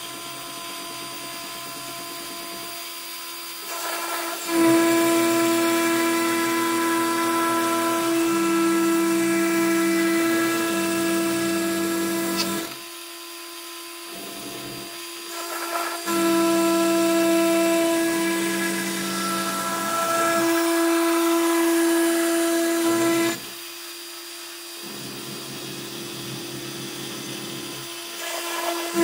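Mostly printed CNC (MPCNC) router milling plywood: its spindle and stepper motors give a steady pitched whine. It gets much louder for two long stretches of about eight and seven seconds and drops back in between, then rises again at the very end.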